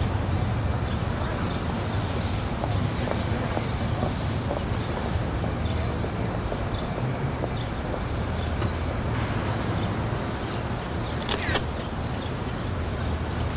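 Steady city street noise, mostly the low rumble of road traffic, with a brief sharp high sound about eleven and a half seconds in.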